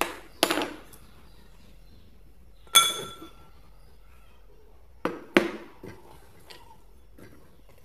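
Kitchenware clinking and knocking as spice containers and utensils are handled and set down: several short separate knocks. The loudest, about three seconds in, rings briefly.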